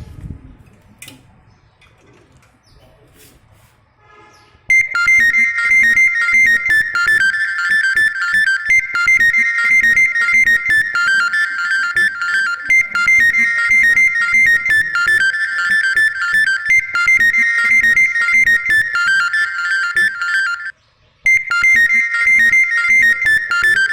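Background music: after a quiet opening few seconds, a loud, high, repeating melody of stepping notes starts about five seconds in. It cuts out for a moment near the end and picks up again.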